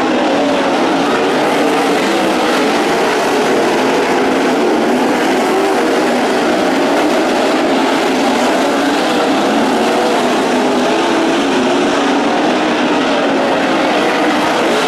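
A field of ASCS sprint cars' V8 engines running hard around the dirt oval: a loud, dense drone of many overlapping engine notes, each rising and falling as cars go through the corners and down the straights.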